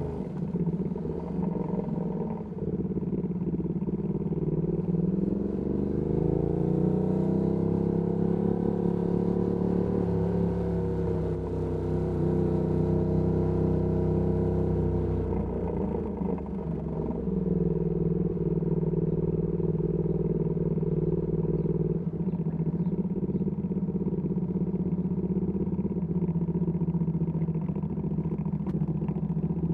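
Ducati Panigale V2S V-twin running through a Termignoni exhaust while the bike is ridden. The revs climb a few seconds in and hold steady, then drop off about halfway through and settle into a steady lower note.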